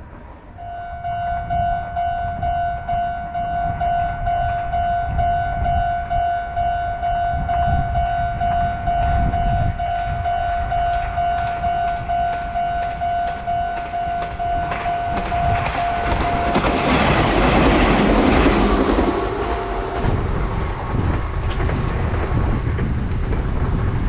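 Japanese railway level-crossing alarm ringing a steady, repeating electronic clang. About two-thirds of the way through, a Meitetsu electric train runs over the crossing; its wheel and running noise grows loudest around three-quarters through and drowns the bell.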